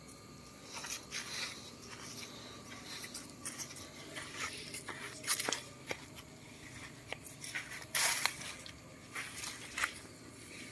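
Irregular crunching and scraping of footsteps on dry leaves and sandy dirt, with the longest and loudest crunch about eight seconds in.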